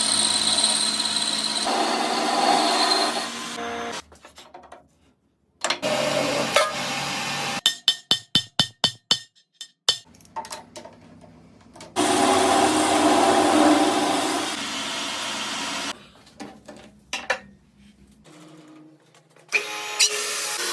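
Metal-lathe machining noise in short cut-together clips: stretches of steady cutting noise that stop abruptly, with quiet gaps between them. In the middle comes a quick run of about nine sharp knocks.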